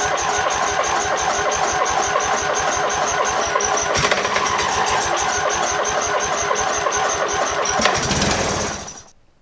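Electric starter cranking a 15 hp lawn tractor engine in a fast, even rhythm with a high starter whine, without it catching; the engine is not getting fuel. The cranking changes about eight seconds in and stops suddenly about a second later.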